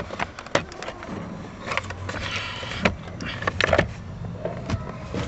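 Irregular sharp clicks and knocks of plastic interior trim covers being handled and fitted back into place, with a short rustle about two seconds in.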